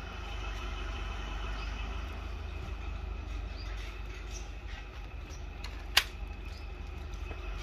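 A single sharp metallic click about six seconds in from a Diana Mauser K98 spring-piston air rifle being cocked with its underlever, over a steady low background hum.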